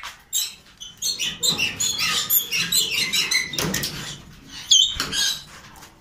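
Caged birds chirping and twittering in quick, high-pitched calls, with one loud, sharp whistled call sweeping up and down near the end.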